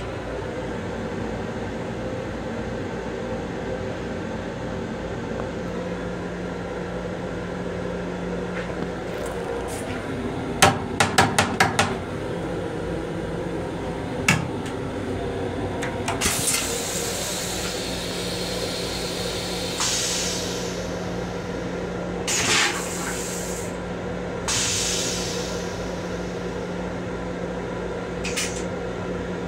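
Steady hum inside an M7 railcar's restroom, with a quick run of about six sharp clicks around eleven seconds in and a single knock a few seconds later as the plastic toilet seat is handled. From about sixteen seconds on come several hissing bursts of spraying water: the first lasts about three seconds, the later ones are shorter.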